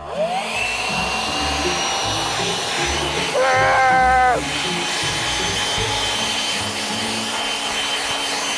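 Handheld leaf blower spinning up with a rising whine at the start, then running steadily, a high whine over a rush of air. A boy shouts once, for about a second, some three seconds in.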